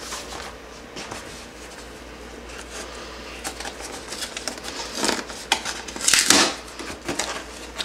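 Cardboard mailing box handled and torn open by hand: light rustling and scraping, then louder ripping of the cardboard from about five seconds in, the loudest rip a little after six seconds.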